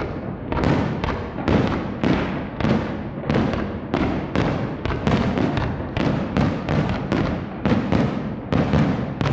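Fireworks bursting in a rapid barrage, about two to three sharp bangs a second, each with a short fading tail.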